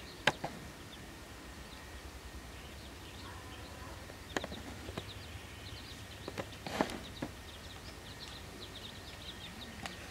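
A few sharp knocks and clicks from a fish being cut on an upright boti blade. Small birds chirp repeatedly in the background.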